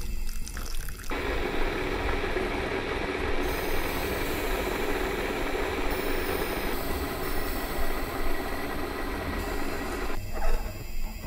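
A thin stream of liquid pouring steadily into a ceramic mug, starting about a second in and stopping shortly before the end.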